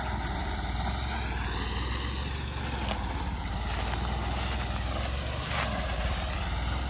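Kubota B2420-based sugarcane-leaf shredder running, its 24 hp three-cylinder diesel engine giving a steady drone.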